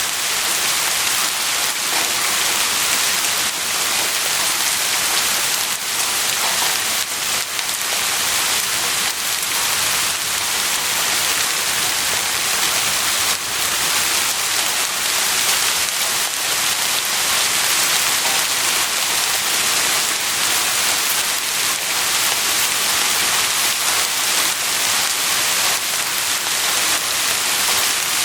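Heavy rain falling steadily, a dense even hiss of drops striking a surface, with no thunder.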